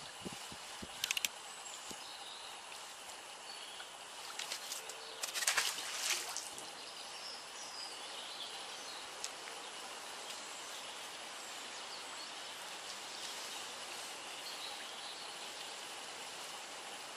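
Steady outdoor background noise with faint bird chirps now and then. A few short rustling, scuffing noises come about a second in and, louder, around five to six seconds in.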